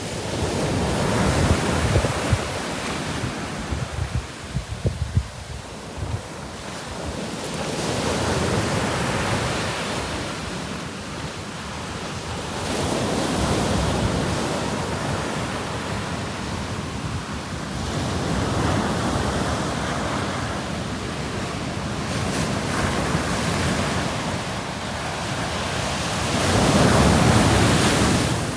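Ocean waves breaking on a beach, the surf rising and falling in swells every few seconds, the loudest near the end. Wind buffets the microphone in a low rumble.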